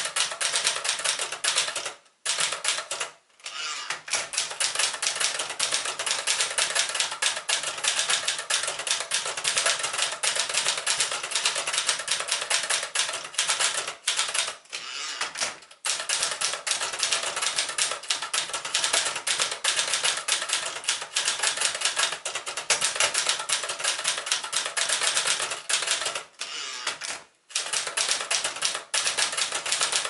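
Brother Echelon 89 portable typewriter, a 1973 version of the Brother JP-1 design, being typed on at a brisk pace. The typebars strike in a rapid run of clicks, broken by a few short pauses.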